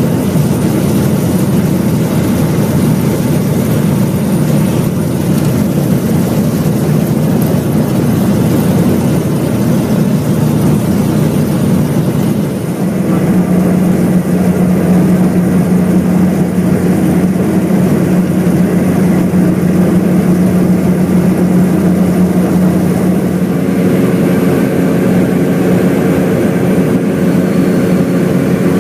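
Light propeller plane's engine and propeller droning steadily, heard inside the cabin. About halfway through, a steady low hum within the drone becomes more pronounced, and a set of higher tones joins it near the end.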